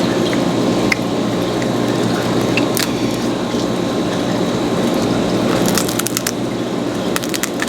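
Lobster tail shell being cracked and pulled apart by hand to get the meat out: sharp crackling snaps, a few at first, then quick clusters about two thirds of the way through and near the end, over a steady background noise.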